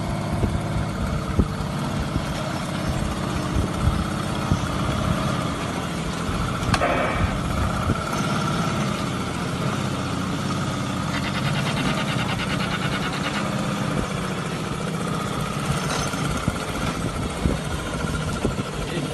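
Homemade V12 engine, modelled on the Tiger tank's Maybach, running steadily at idle, with a single sharp click about seven seconds in.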